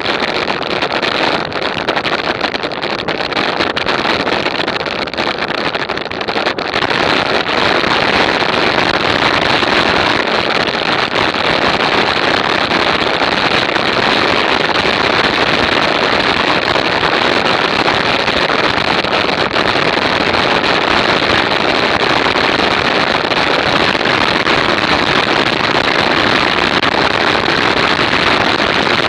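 Steady wind rush over an action camera's microphone while riding at speed, growing louder about six and a half seconds in and then holding.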